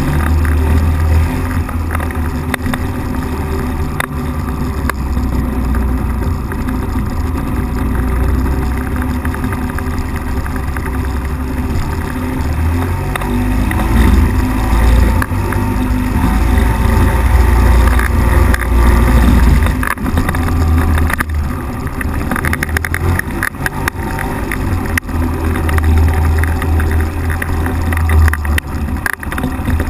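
Ultralight weight-shift trike's engine and pusher propeller running as it rolls over grass. The sound is a continuous loud rumble that swells for a few seconds midway and again near the end as the throttle changes.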